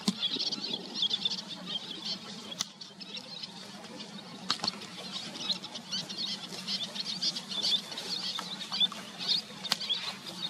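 Little tern chicks peeping: a continuous chatter of rapid, thin, high-pitched squeaky calls, with a few sharp clicks.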